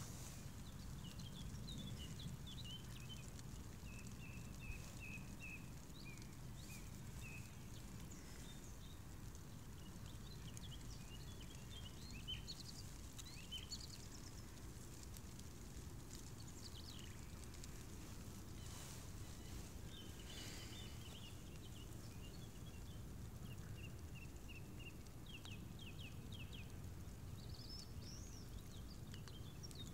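Quiet outdoor ambience: small birds chirping and trilling on and off over a low steady rumble, with a few faint clicks.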